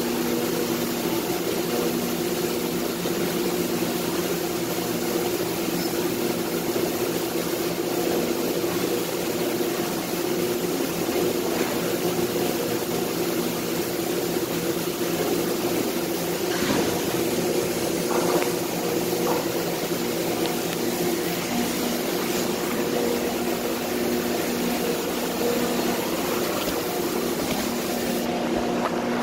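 Steady drone of factory machinery running, with several constant hum tones, and a few brief knocks about halfway through.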